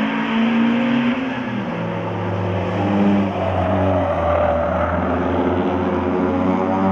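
Engines of two small race cars running at speed, one dropping in pitch about a second in as it eases off, then rising again and holding steady.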